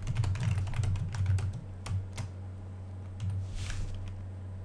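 Typing on a computer keyboard: a quick run of key clicks in the first couple of seconds, then a few scattered keystrokes, over a steady low hum.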